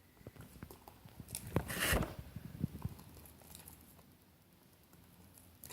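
Hands kneading soft, sticky glue slime, with small wet clicks and pops and a louder squelching stretch about one and a half to two seconds in.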